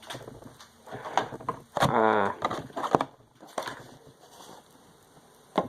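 Light clicks and knocks from a small plastic RC truck being handled, with a short hummed 'um' about two seconds in.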